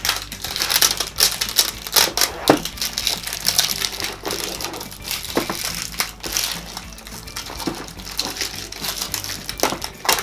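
Plastic toy packaging crinkling and crackling in irregular bursts as it is handled and torn open by hand.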